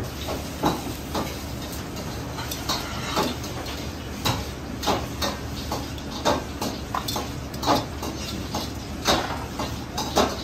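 Irregular clinks and taps of a metal utensil and stoneware bowls on a stainless-steel counter as king crab legs are laid into the bowls, over a steady low kitchen hum.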